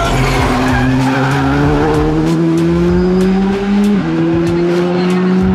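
Škoda Fabia rally car engine under hard acceleration, its pitch climbing steadily. A quick upshift about four seconds in drops the pitch before it climbs again. Sharp crackles sound over the engine in the second half.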